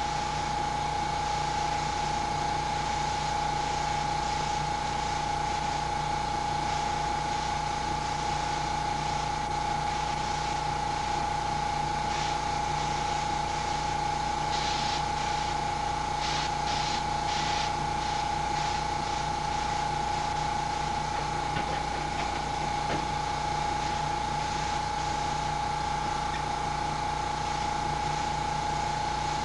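Small air compressor for an airbrush running steadily, a constant motor hum with a steady whine. A few short hisses of air come about halfway through.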